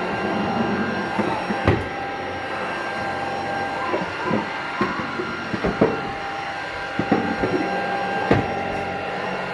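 Tocmoc T230 cordless stick vacuum running with a steady motor whine, with scattered clicks and knocks throughout.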